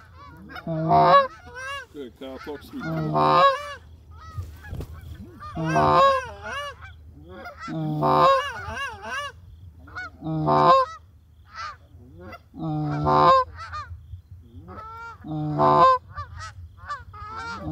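Goose calls blown by a hunter to call in a flock of Canada geese: loud honks repeated about every two seconds, with quicker, shorter clucks in between.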